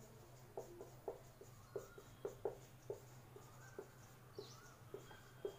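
Marker pen squeaking faintly on a whiteboard in short, irregular strokes as words are written out by hand.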